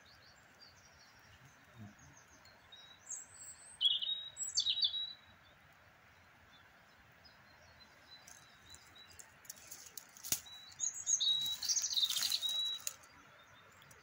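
Small birds chirping in two short bouts, about three seconds in and again around eleven seconds in, with one sharp click between them.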